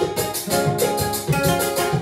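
Acoustic guitar strummed in a rumba rhythm, even strokes about four a second, with chord notes ringing between them.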